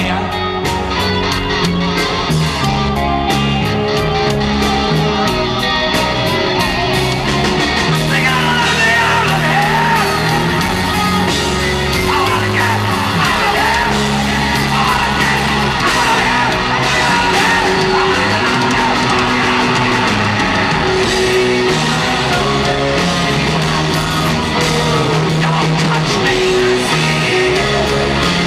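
Live hard rock band playing in a concert hall, with a male lead vocalist singing and yelling over it, from about a third of the way in.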